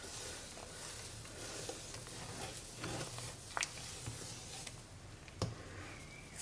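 A slotted wooden spatula stirring a thick soap-and-brine mixture in a stainless steel pot as it turns to curds during salting out, with wet swishing and a couple of sharp knocks of the spatula against the pot, the loudest about five and a half seconds in.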